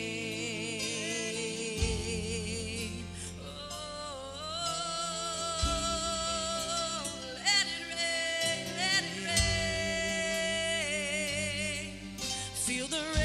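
Worship music: a singing voice holding long notes with vibrato over sustained instrumental chords, the bass note changing every few seconds.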